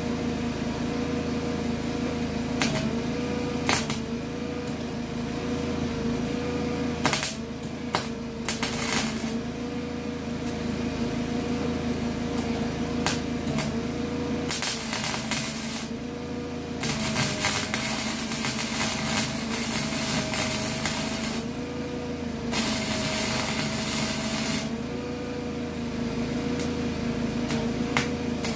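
Small 120-volt wire-feed welder arcing on a school bus's steel floor: several runs of crackling arc noise, a second to about four seconds each, broken by short pauses, over a steady wavering machine hum.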